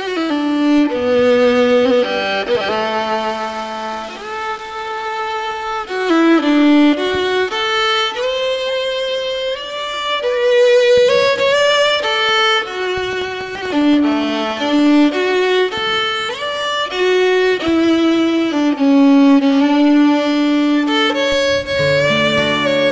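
Background music: a solo fiddle playing a slow melody of held notes with slides between them. Lower accompanying notes come in near the end.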